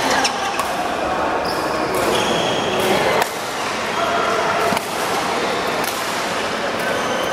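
Badminton rally in a large echoing hall: rackets striking the shuttlecock with sharp pops, the clearest about three seconds in, and court shoes squeaking on the floor, with voices around the court.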